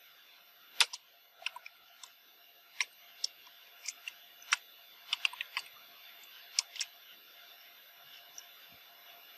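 Computer keyboard keystrokes: sharp single clicks typed slowly and irregularly, some in quick little runs and some alone with short pauses between.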